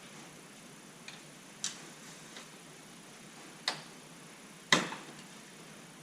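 Plastic grille being worked into place on a pickup's front end: about five sharp, irregular clicks and knocks, the loudest a little under five seconds in.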